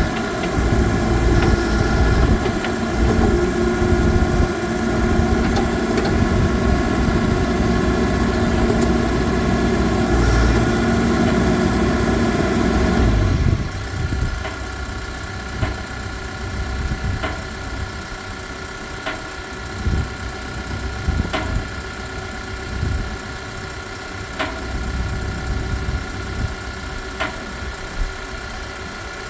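Case 580N backhoe's four-cylinder diesel engine running steadily at idle. About halfway through it becomes noticeably quieter and lighter, and faint occasional ticks can be heard over it.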